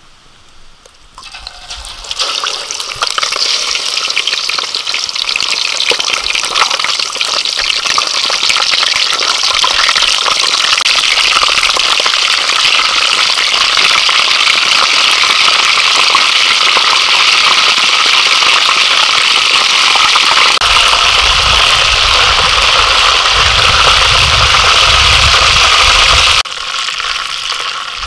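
Whole chicken deep-frying in a wok of hot oil: a loud, steady sizzle that builds from about two seconds in, with a low rumble under it in the last few seconds, and cuts off suddenly near the end.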